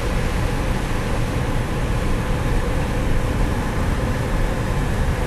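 Steady road noise of a car driving on a dirt road, heard from inside the cabin: engine and tyres on the unpaved surface, a low, even rumble.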